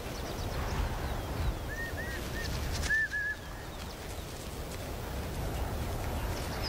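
Outdoor ambience: a steady low rumble with a string of short, high, arched animal chirps about two to three seconds in.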